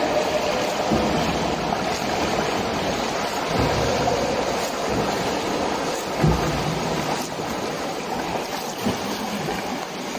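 A swimmer swimming butterfly, with a steady wash of water noise and heavier splashes about every two and a half seconds.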